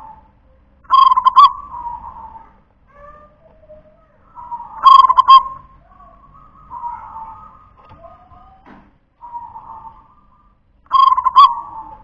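Local Indonesian zebra dove (perkutut) singing its cooing song: three loud phrases, each under a second long and several seconds apart, with fainter cooing in between.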